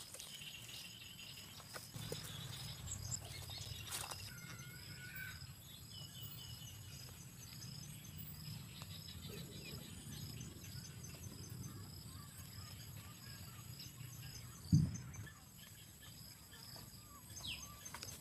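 Quiet rural outdoor ambience: faint bird chirps and a thin, steady insect buzz over a low rumble. A single dull thump comes near the end.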